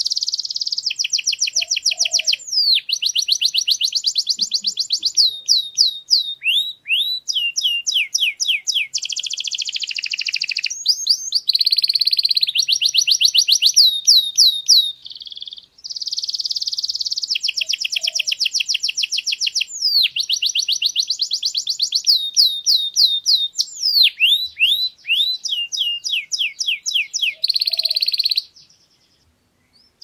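Domestic canary singing a long, rapid song of fast trills and rolling runs of repeated sweeping notes. There is a brief break about halfway through, and the song stops about two seconds before the end.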